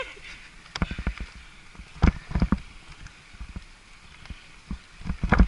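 Irregular knocks and rattles, in clusters about a second in, about two seconds in and loudest near the end: a moving camera mount jolting over bumps in the road surface.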